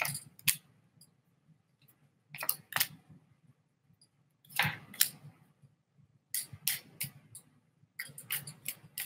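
Tarot cards being handled: short, sharp snaps and taps in small clusters, with pauses between.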